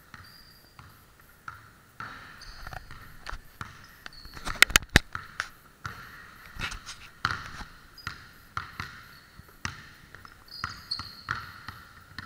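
Basketball bouncing on a hardwood gym floor during one-on-one play, a run of separate knocks. About halfway through comes a quick burst of much louder, closer knocks.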